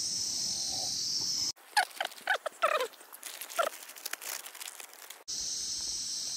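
Steady chorus of crickets. It is broken for a few seconds in the middle by a dog whining: a run of short high whines, most falling in pitch, with a few soft clicks.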